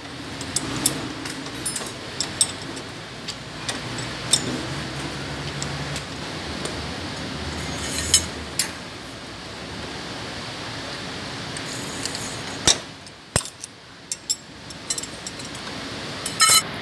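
Steel spanner and bolts of a truck cab shock absorber mount clinking and tapping: scattered sharp metal clicks, with a cluster of louder clinks near the end, over a steady low hum.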